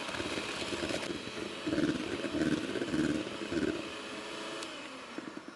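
Electric mixer whipping egg whites and sugar into meringue at a steady normal speed, fading away near the end.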